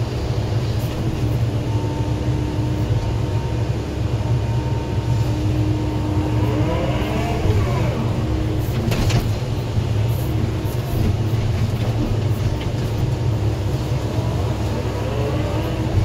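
Excavator's diesel engine running steadily, heard from inside the cab, while the hydraulics whine up and down in pitch as the arm and bucket dig. One sharp knock comes about nine seconds in.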